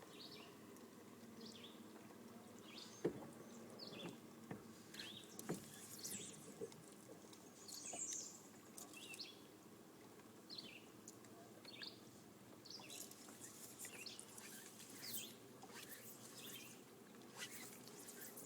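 Birds chirping with many short calls scattered throughout, quiet, with a couple of sharp knocks a few seconds in.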